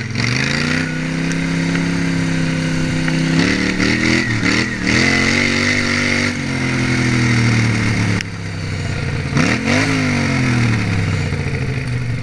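Outlaw racing lawnmower's engine at full throttle, heard up close from on board. The pitch climbs on the straights, drops sharply about two-thirds of the way through as the driver backs off for a turn, then rises again and falls away.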